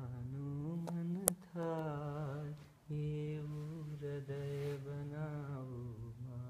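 A man singing a Gujarati devotional song unaccompanied, holding long notes that waver and slide in pitch, with a brief pause for breath in the middle. A single sharp click about a second in.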